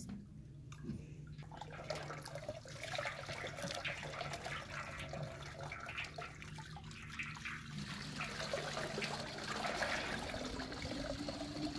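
Water poured from a plastic jug trickling over a whole raw chicken as it is rubbed clean by hand, and splashing into a metal basin below. It starts about two seconds in and runs on unevenly.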